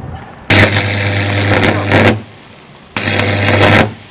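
Electric arc drawn straight off 220 V mains with three 2 mm welding electrodes bundled together: two loud bursts of buzzing crackle over a deep steady mains hum. The first lasts about a second and a half, and a shorter one comes near the end. Each breaks off sharply when the arc goes out.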